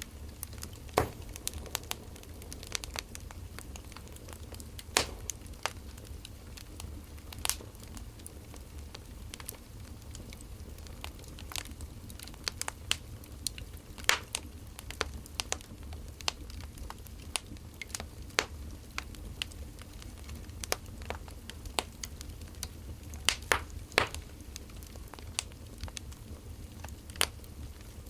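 Wood fire crackling, with irregular sharp pops and snaps of varying loudness over a steady low hum.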